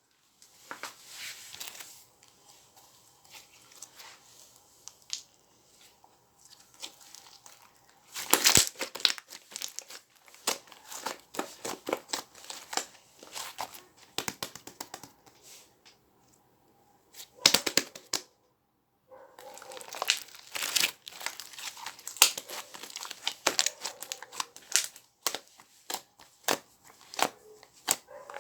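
Trapped air bubbles popping: many small crackling pops and clicks in uneven clusters, with a short pause about two-thirds of the way through.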